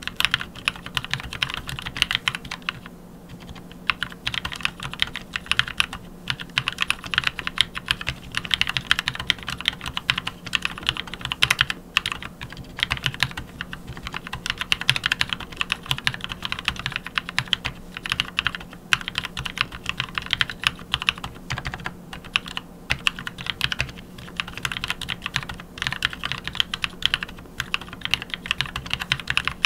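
Anne Pro 2 mechanical keyboard fitted with NovelKey Cream switches lubed with Krytox 205g0, typed on steadily on a desk mat: a continuous stream of keystroke clacks with a few brief pauses.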